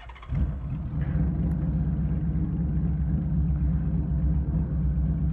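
Honda Valkyrie flat-six with Cobra six-into-six pipes starting up: a brief crank on the starter, then the engine catches and idles loud and steady.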